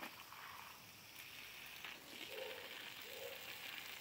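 Water from a garden hose splashing steadily onto soil, a faint continuous hiss.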